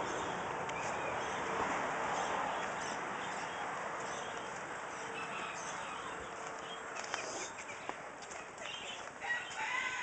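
Farm birds calling in their pens, with rustling and handling noise from the camera being carried. The calls come louder and closer together near the end.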